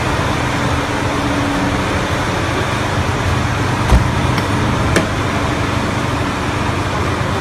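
Steady engine rumble and road noise of large vehicles. There is a single heavy thump about four seconds in and a sharp click about a second later.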